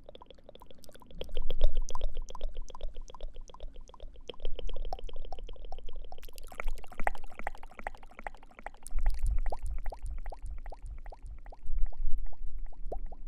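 ASMR mouth sounds close to the microphone: a fast, continuous run of small wet tongue and lip clicks. Breath puffs against the microphone a few times.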